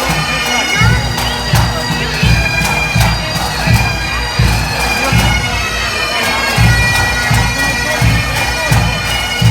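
Bagpipes playing a melody over their steady drones, with a low thump about every three quarters of a second beneath.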